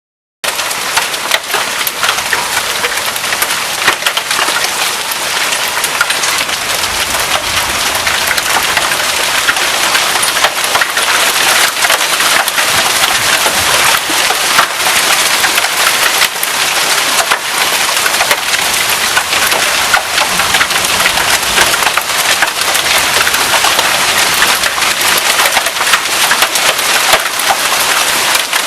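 Heavy rain and hail pelting hard surfaces, a dense steady hiss shot through with many sharp clicks of hailstone strikes, growing somewhat heavier after the first several seconds.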